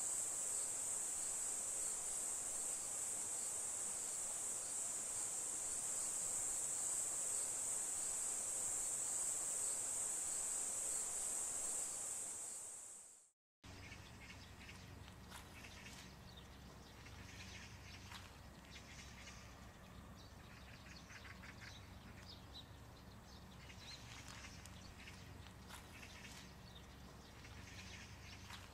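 Steady high-pitched chorus of insects, fading out about twelve seconds in. After a short gap comes a quieter stretch of scattered bird chirps over a low hum.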